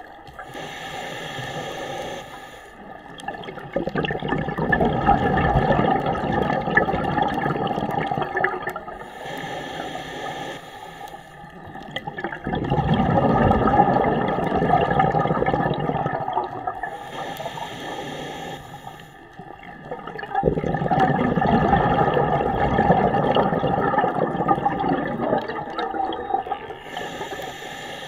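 Scuba diver breathing through a regulator underwater. Each short hissing inhale is followed by a longer, louder rush of exhaled bubbles, three breaths about eight seconds apart.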